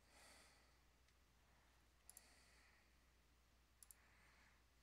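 Two faint computer mouse clicks, each a quick double tick of button press and release, a little under two seconds apart, over near-silent room tone.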